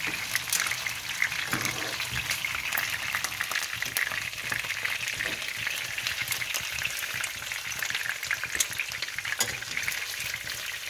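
Cornflour-coated chicken pieces frying in hot olive oil: a steady crackling sizzle with many small sharp pops.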